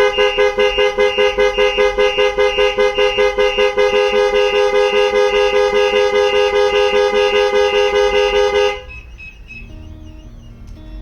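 Ford Transit van's horn blaring in rapid repeated honks as the Starline Solaris alarm goes to full trigger. It cuts off suddenly about nine seconds in, when the alarm is disarmed by the PIN code, and soft background music follows.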